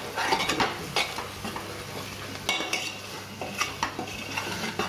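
A spoon stirring in a pressure cooker, with irregular scrapes and clinks against the pot, over a soft sizzle of onions and ground spices being roasted in mustard oil on low heat.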